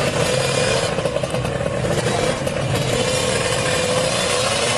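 Kawasaki Ninja R's two-stroke single-cylinder engine held at high revs, loud, its pitch nearly steady with a slight dip and rise.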